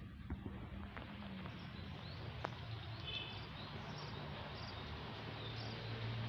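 Outdoor ambience: a steady background hiss and low hum, with faint short bird chirps through the middle and a few light clicks.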